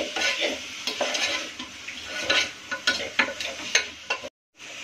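Wooden spatula stirring and scraping onions, tomatoes, peas and carrots with spices as they fry in oil in a pressure cooker: a steady sizzle broken by repeated scrapes and knocks of the spatula against the metal pot. The sound cuts out briefly near the end, then an even sizzle carries on.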